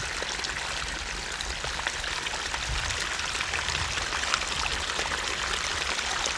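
Steady rushing, crackly hiss with an uneven low rumble underneath.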